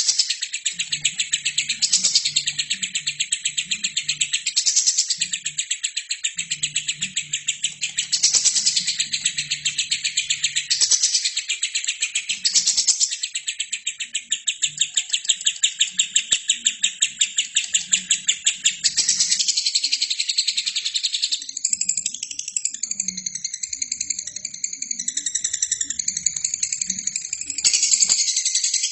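Albino lovebird singing a long, very rapid chattering trill with barely a break, turning into a wavering, warbling run about two-thirds of the way through.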